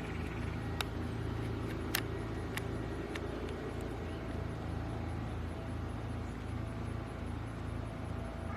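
Steady low engine rumble with an even pulsing beat, broken by a few sharp clicks in the first three seconds or so.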